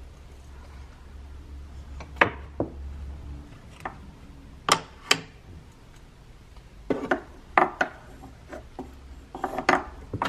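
Wooden peg-puzzle pieces knocking and clattering against the puzzle board and shelf as a toddler handles them: irregular sharp knocks, several in quick pairs, over a faint low hum.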